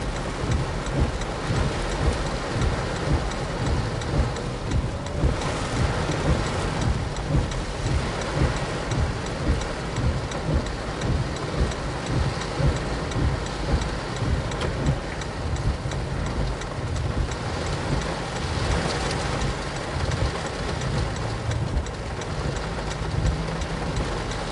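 Heavy rain falling on a car's roof and windshield, heard from inside the car as it drives, with a low road and engine rumble underneath.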